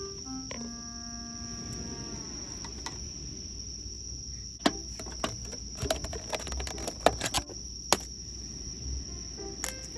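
Crickets trilling steadily in one high, unbroken tone, with a scatter of light clicks and knocks in the middle.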